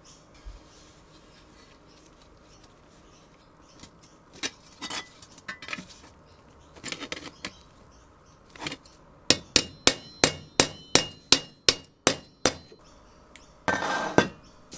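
Steel tongue-and-groove pliers working a wire at the edge of a sandblasted steel tricycle mudguard. After a few scattered soft taps comes a run of about a dozen sharp metal clicks, about three a second. Near the end there is a short scrape and knock as a steel fork is set down on the wooden bench.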